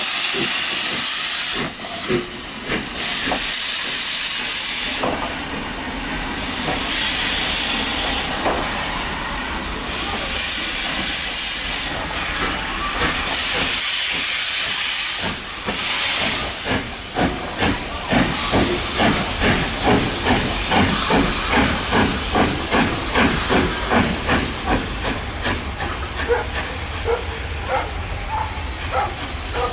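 LMS Royal Scot class 4-6-0 steam locomotive 46115 Scots Guardsman, a three-cylinder engine, starting away with its train. Steam hisses loudly in long pulses every couple of seconds, then from about halfway the exhaust beats come in a steady, quickening rhythm as it gathers speed.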